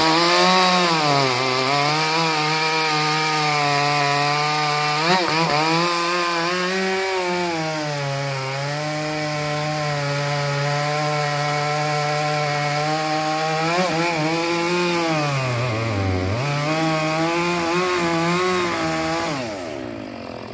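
Chainsaw with a 36-inch Holzfforma light-cut bar at full throttle, cutting through a large log; the engine's pitch wavers under the load of the cut, sags sharply about 16 seconds in and picks back up. Near the end the throttle is let off and the engine drops back toward idle.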